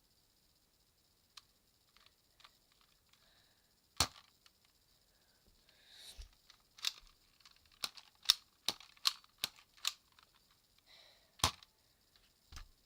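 Sharp plastic clicks and snaps from a Nerf Fire Strike blaster being cocked and its trigger worked: a loud snap about four seconds in, a quick run of clicks in the middle, and another loud snap near the end.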